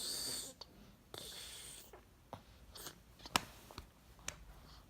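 A person imitating snoring with two breathy, hissing breaths, followed by a few light clicks.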